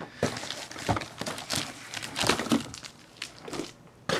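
Hands rummaging in a cardboard shipping box, with rustling and scattered knocks from the box and the packaging inside it.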